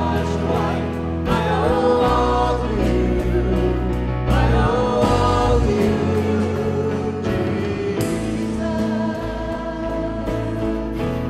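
Christian worship song: voices singing a melody over instrumental accompaniment with a sustained bass line.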